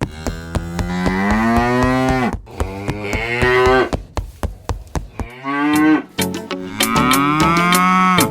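Cattle mooing: four long moos, each rising then falling in pitch, with a steady clicking beat behind them.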